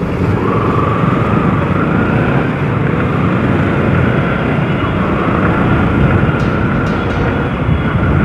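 Motorcycle on the move: engine running steadily under heavy wind rush, with a faint tone that wavers a little in pitch.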